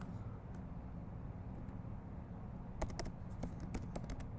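Computer keyboard keystrokes: a quick run of clicking keys starting nearly three seconds in, over a low steady background hum.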